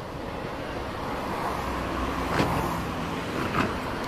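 Diesel shunting locomotive running slowly as it approaches, a steady low engine rumble that grows from about a second and a half in, with two short sharp clicks near the middle and near the end.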